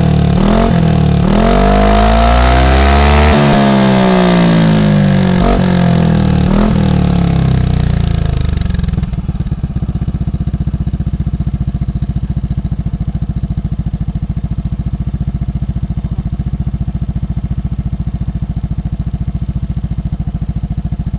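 Yamaha NMAX 155 scooter's single-cylinder engine through a Pro Speed Scooter Series aftermarket exhaust with its dB killer baffle fitted, blipped several times with the pitch rising and falling, then settling about nine seconds in to a steady idle.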